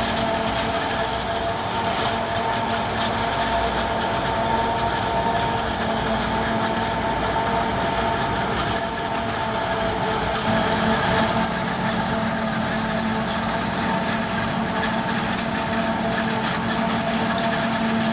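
John Deere 7450i self-propelled forage harvester running under load while chopping maize: a loud, steady machine whine with several pitches over dense engine and crop noise. The low hum grows stronger about ten seconds in.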